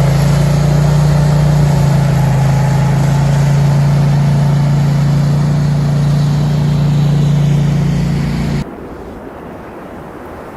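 An engine running steadily: a loud, even low hum over a wide hiss, cutting off abruptly about eight and a half seconds in.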